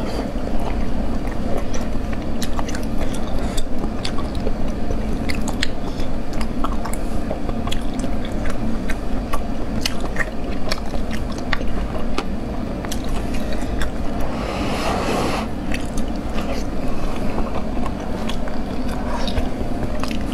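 Close-up eating sounds of someone chewing and sucking cooked snails in sauce: wet mouth clicks and smacks throughout, with one longer sucking sound about fifteen seconds in.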